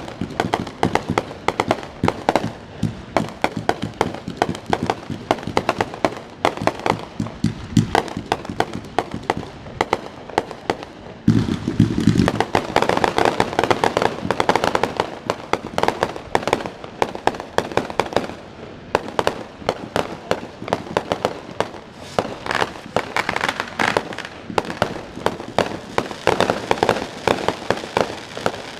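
Fireworks display: a dense, continuous string of pops and crackles from many bursting shells, turning louder and fuller about a third of the way in.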